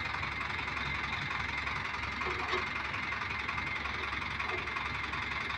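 Diesel engine of a hydra mobile crane running steadily at idle, with a thin steady high tone over the low rumble.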